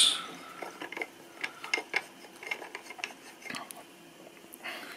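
Light metallic clicks and small scrapes, scattered and irregular, from an air-rifle silencer being handled.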